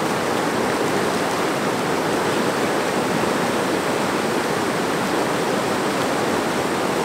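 Steady rush of large whitewater rapids: a river pouring over rocks and through big standing waves, an even roar with no distinct splashes standing out.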